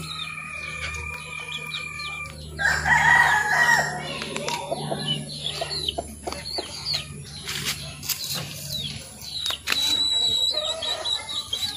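A rooster crows once, loudest about three seconds in, with other chickens clucking around it. A few light clicks from handling a plastic syringe and medicine vial follow later.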